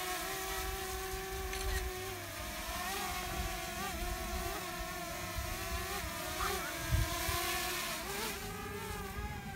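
Small quadcopter drone's propellers whining as it hovers and manoeuvres, the pitch wavering up and down as the motors adjust, with a brief thump about seven seconds in.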